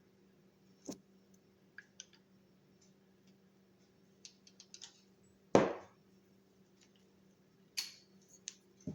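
Handling noises from unpacking tool-kit parts: scattered light clicks and taps, with one loud knock about halfway through and two more sharp knocks near the end.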